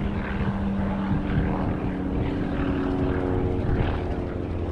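A propeller airplane's engine running with a steady drone.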